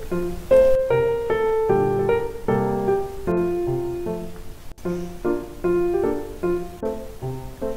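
Background piano music: a light melody of plucky, evenly paced keyboard notes.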